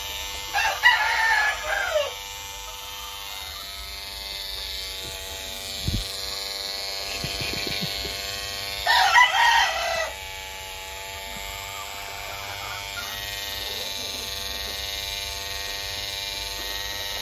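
Corded Wahl Peanut electric clipper buzzing steadily as it shaves a gamecock's face feathers. A rooster calls loudly twice over it, about a second in and again about nine seconds in.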